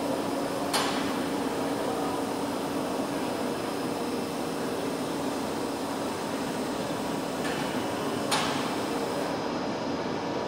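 Milling cutter of a TOS Varnsdorf WRD 180 H horizontal boring mill cutting a metal block: a steady machining noise with a low hum. Two sharp clicks, about a second in and just after eight seconds.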